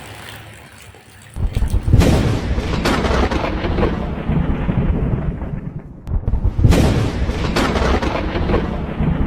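Rain with two loud rolls of thunder. The first breaks about a second and a half in and the second about six seconds in, each with a deep rumble that fades slowly.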